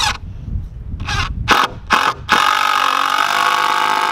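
Cordless DeWalt impact driver driving a screw into thick wooden boards: a few short trigger bursts to start the screw, then one steady run of about two seconds near the end as it drives the screw home.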